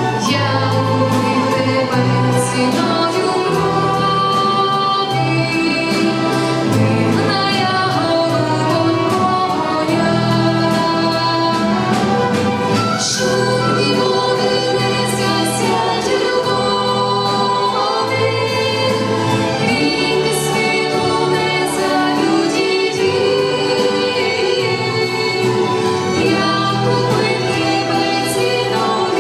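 A choir singing a hymn with an orchestra accompanying, many voices in harmony over sustained instrumental chords.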